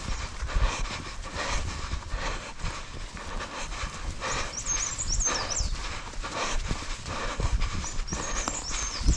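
A trail runner's footsteps pounding the path about twice a second, with heavy breathing.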